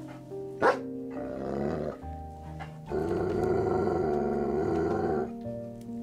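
A dog barks once, then growls, with a longer, louder growl from about three seconds in to just past five, over background music with held notes.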